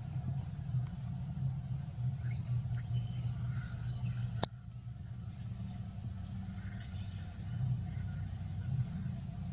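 Outdoor ambience: a steady high-pitched insect drone that swells and fades, over a low steady rumble, with one sharp click about four and a half seconds in.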